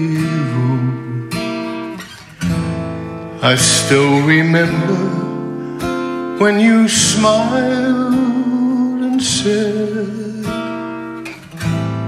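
Acoustic guitar playing chords of a slow ballad, each chord struck sharply and left to ring for one to three seconds.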